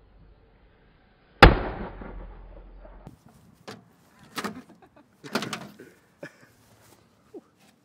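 A firework going off with one loud sharp bang about a second and a half in, its rumble fading over the next second or so, followed by several fainter pops and knocks.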